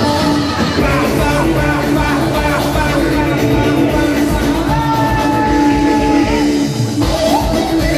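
Live Turkish folk dance music with plucked strings over a steady, driving beat that fills out about a second in. A long held melody note sounds in the middle.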